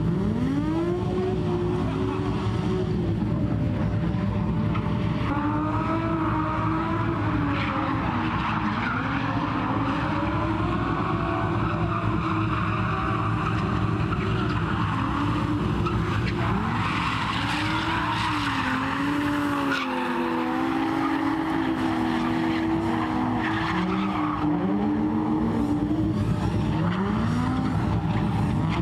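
Drift cars sliding in tandem, their engines revving up and down over and over over a steady hiss of spinning, skidding tyres.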